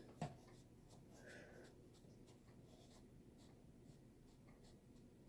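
Near silence, with faint soft rubbing and light ticks of fingertips spreading foundation over the skin of the face.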